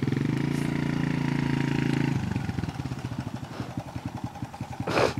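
Kawasaki KLX dirt bike's single-cylinder four-stroke engine held at raised revs for about two seconds, then settling back to idle, its separate firing pulses audible. A short sharp burst of noise comes near the end.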